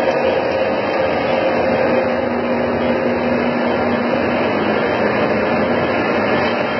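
Stainless-steel snack-food production line running: the steady whir of electric motors and fans, with a constant hum and a lower hum joining for a couple of seconds midway.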